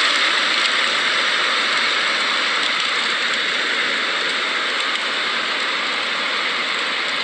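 Strong storm wind in a phone recording, a steady loud whoo of rushing noise with no letup.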